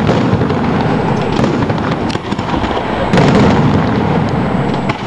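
Aerial fireworks display: a dense, continuous barrage of overlapping shell bursts and crackles, easing briefly about two seconds in.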